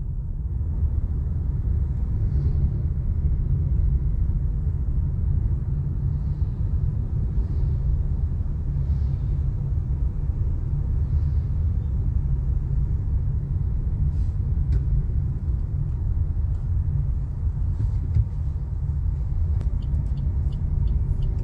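Steady low rumble of a car on the move, heard from inside the cabin: road and engine noise, with a few faint clicks near the end.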